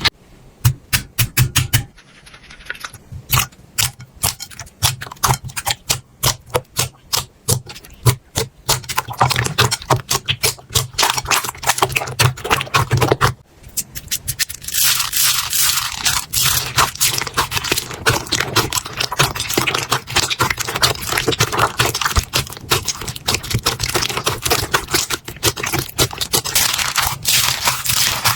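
Slime being squeezed, poked and stretched by hand, giving a rapid run of sticky pops and clicks. It drops briefly about two seconds in and again about halfway, after which it turns into a denser crackling.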